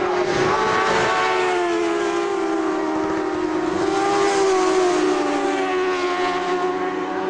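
Several superbike racing motorcycles at full throttle passing one after another, their engine notes overlapping and rising and falling in pitch as they accelerate and pass.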